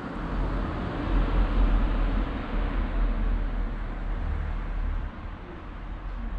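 Street ambience: a low rumble with a hiss of road traffic, swelling about a second in and easing somewhat near the end.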